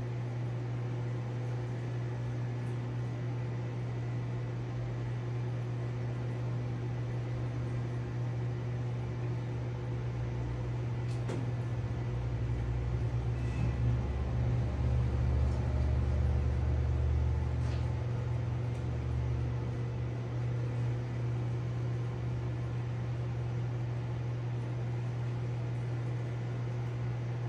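Steady low hum of reef aquarium equipment, such as the circulation pump, with a faint wash of moving water. The deepest part of the hum swells a little around the middle.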